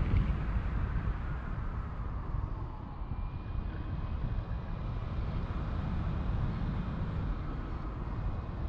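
Wind buffeting the microphone of a pole-held camera on a tandem paraglider in flight: a steady, wavering low rumble. A faint thin high tone runs in the background from about three seconds in.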